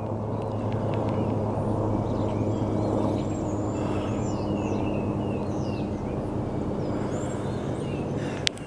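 Steady low engine drone, with birds chirping over it and a sharp click near the end.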